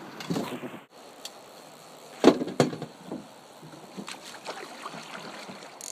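Two sharp knocks in a boat, about a third of a second apart, over a steady hiss.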